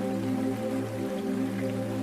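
Calm new-age background music of sustained, layered tones, with a faint dripping, rain-like patter under it.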